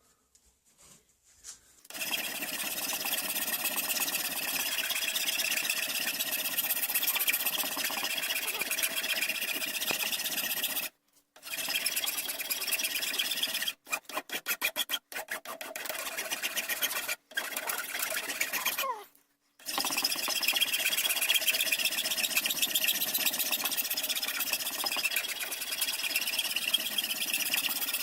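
Power sanding tool grinding away horn to shape a rifle stock's muzzle end, a steady abrasive rasp. It stops a few times, once with a falling pitch as it spins down, and there is a run of short quick touches in the middle.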